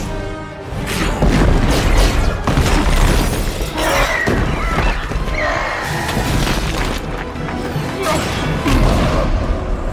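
Action-film battle soundtrack: orchestral score under repeated crashes and heavy impacts, with glass and debris shattering.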